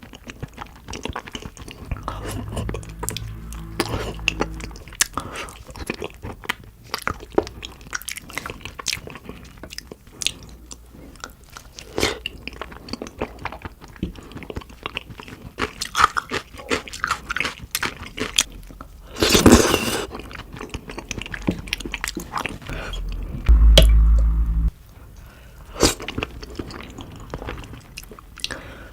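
Close-miked chewing and biting of spicy beef feet, with many small wet clicks and crackles. A louder, noisy burst lasting about a second comes about two-thirds of the way in, and a low bump follows a few seconds later.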